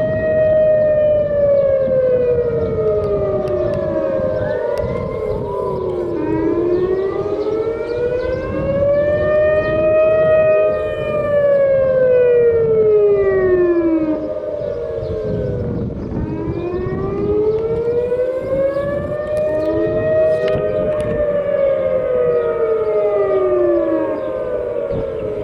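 Civil defence warning sirens of a city-wide early warning system sounding a slow wail during a test, the pitch rising and falling about every ten seconds. More than one siren is heard, their wails out of step with each other.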